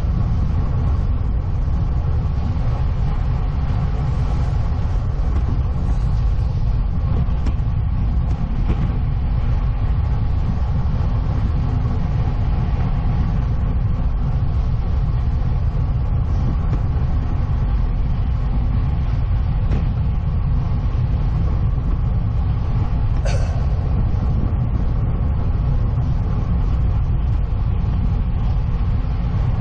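Steady wind buffeting and tyre rumble picked up by a road bike's on-board action camera while riding. About three-quarters of the way in there is one brief, sharper high-pitched sound.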